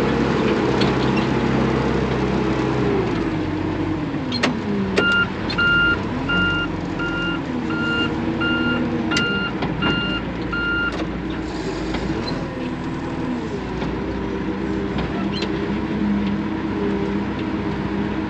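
Farm machinery engine running, its speed rising and falling, with a backup alarm beeping about ten times, evenly spaced, from about five to eleven seconds in. A few sharp clicks sound near the start of the beeping.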